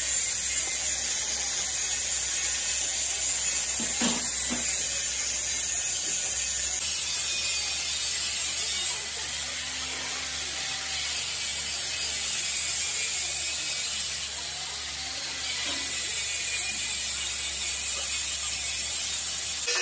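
Electric arc welding on the steel of an excavator bucket: a steady sizzling hiss from the arc, with no breaks.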